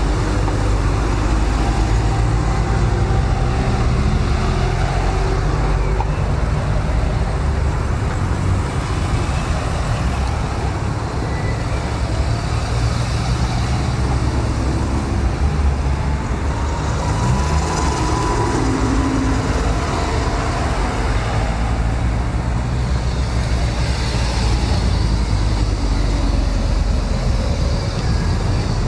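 Fiat Coupé sports cars driving slowly past one after another, their engines running close by over a steady low rumble of road traffic, one engine briefly rising and falling in pitch about two-thirds of the way through.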